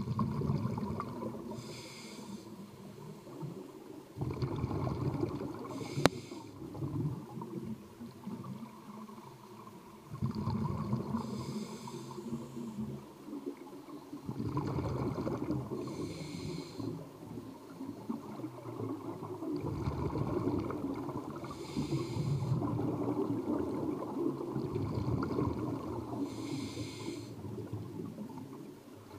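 Scuba diver breathing underwater through a regulator: a short hissing inhale about every five seconds, alternating with long stretches of exhaled bubbles. A single sharp click about six seconds in.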